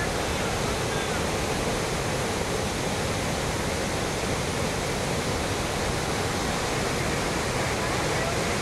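Steady rush of the Paulo Afonso waterfall in heavy flow, a dense, even noise of whitewater pouring over rock ledges.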